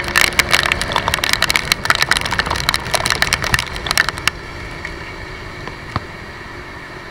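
Heavy rain striking close to the microphone on a moving motorcycle, a dense crackle of drop hits over wind and road noise. About four seconds in the crackle stops abruptly, leaving a quieter steady hum of the ride.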